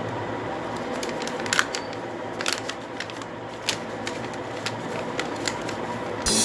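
A sheet of paper being handled and folded by hand: a few short crinkles and taps over a steady background hiss.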